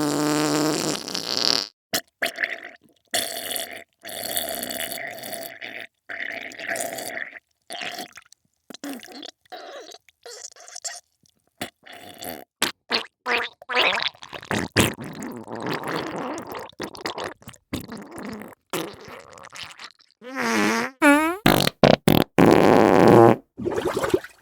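A string of fart and wet diarrhoea sounds, one after another with sudden cuts between them: short sputtering spurts mixed with longer pitched blasts whose pitch wobbles up and down. The loudest come at the very start and again about twenty seconds in.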